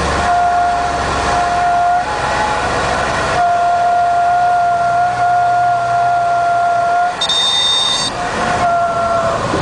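Cessna 182's stall warning horn sounding a steady, horn-like tone in several stretches over engine and wind noise, the sign that the wing is near the stall in the landing flare. A brief high squeal comes about seven seconds in, and the low engine hum changes about three seconds in.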